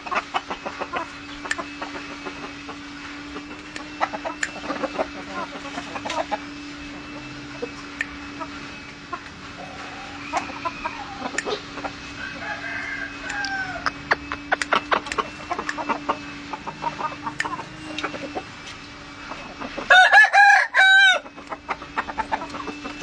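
Chickens clucking softly, then a loud rooster crow about twenty seconds in. A steady low hum runs underneath, with scattered light ticks.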